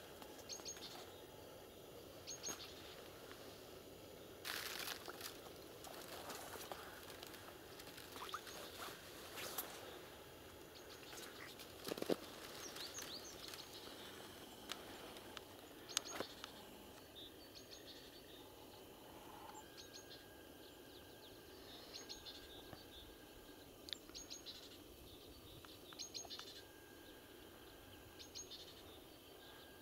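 Faint outdoor ambience with songbirds: short, high calls repeated about every two seconds, clearest in the second half. A few sharp clicks and rustles sound in the first half.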